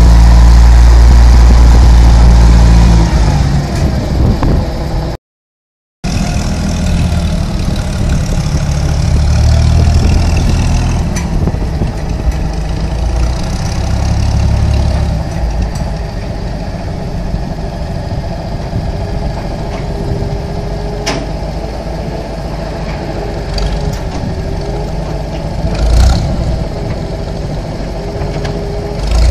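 Trackmobile 5TM rail car mover's Hercules G-3000 engine running. It is revving high at first and drops away about three seconds in. After a brief dropout it settles into steadier running, with small rises and falls as the machine drives and a couple of sharp knocks near the end.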